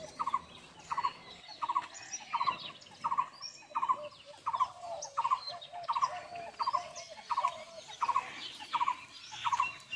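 Birds calling: one short, squeaky call repeated steadily about twice a second, with scattered higher chirps from other birds.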